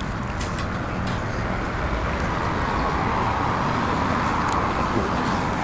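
Road traffic noise: a vehicle passing, its sound swelling in the middle and easing off near the end over a steady background rumble.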